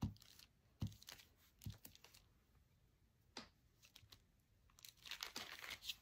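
Faint sounds of a glue stick worked along the lip of a thin paper coffee filter: a few soft taps, then a light crinkling of the filter paper near the end as the lip is folded down and pressed flat.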